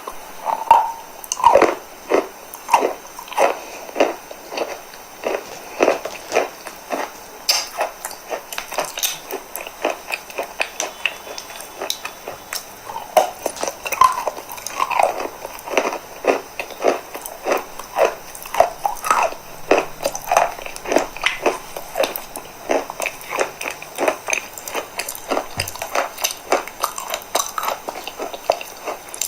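Chalk being crunched close to the microphone: a steady run of short, crisp crunches, about two to three a second.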